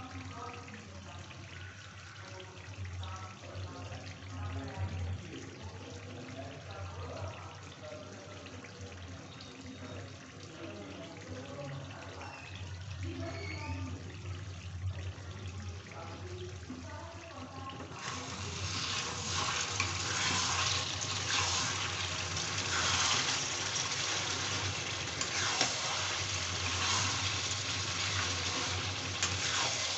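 Chicken curry gravy bubbling as it simmers in a kadhai. About two-thirds of the way in, a sudden, louder steady sizzle takes over as the thickened curry fries and a spatula stirs it.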